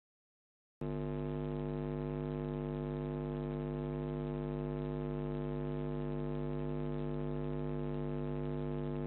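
Steady electrical hum with a buzzy stack of overtones, starting abruptly about a second in after dead silence and holding unchanged in pitch and level.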